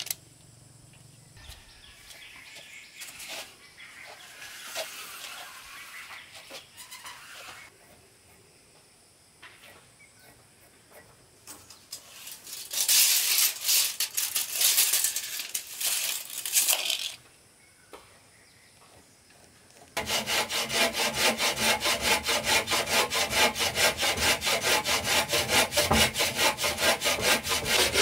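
Wood being worked: intermittent scraping and rubbing, with a louder rasping stretch about halfway through, then from about two-thirds of the way in a saw cutting through wood in steady, rapid, even strokes.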